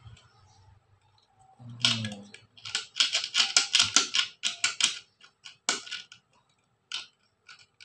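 Contact points of a homemade fish-shocker inverter being scraped clean by hand: a fast run of scratchy metallic clicks for about three seconds, then a sharper click and a few scattered ones. The points are being cleared of crusted dirt that was stopping the contact breaker from vibrating freely.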